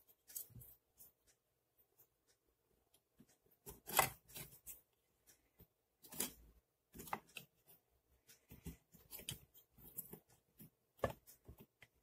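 Faint clicks, taps and scrapes of plastic parts being handled: a hair dryer's plastic fan impeller being fitted onto its motor shaft inside the housing. The loudest clicks come about four and six seconds in, with another near the end.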